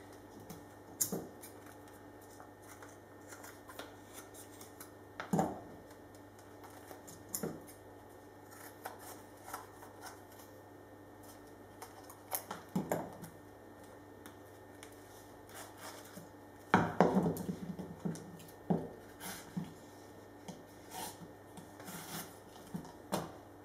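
Scissors snipping and gloved hands handling stiff carbon fibre prepreg cloth on a steel table: scattered snips, rustles and small clicks, with a louder burst of handling noise about 17 seconds in.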